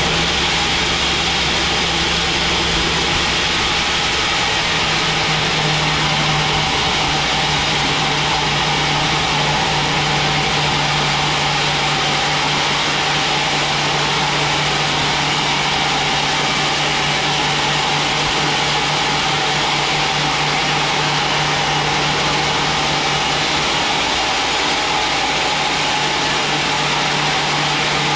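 Large sawmill band saw running and cutting lengthwise through a thick mahogany log: a loud, steady machine noise with a constant hum from the blade and motor.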